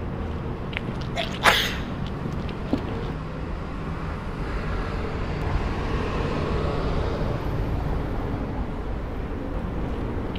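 City street traffic ambience: a steady low rumble, with a vehicle passing that swells and fades through the middle. About a second and a half in comes a single short, sharp hiss-like burst, the loudest sound here.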